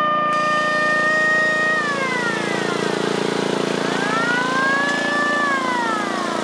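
Small engine of a miniature parade fire truck running steadily as it passes, with a siren wailing slowly down, then up and down again.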